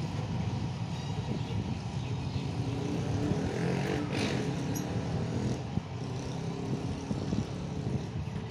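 Diesel train engine running, a low steady sound with a brief hiss about four seconds in.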